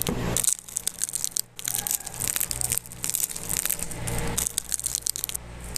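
Crispy fried lumpia wrapper crackling and crunching as the roll is broken open by hand, a dense run of small sharp crackles.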